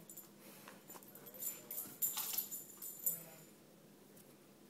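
A dog's metal collar tags jingling in a few short spells as the dog moves about.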